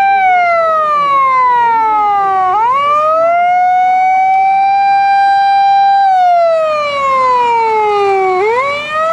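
Japanese fire engine siren wailing in emergency-run mode. A high tone is held, slides down over about two seconds, then swings quickly back up, and this happens twice.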